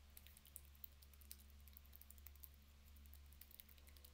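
Near silence: room tone with a low steady hum and faint, scattered small clicks.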